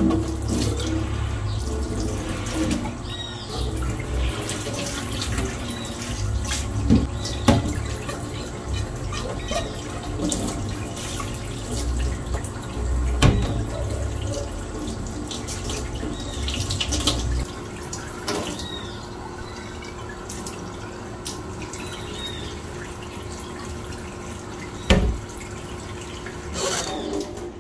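Tap water running into a stainless-steel sink while a glass vase and plant stems are rinsed, with a few sharp knocks of glass against the sink. Birds chirp faintly several times in the background.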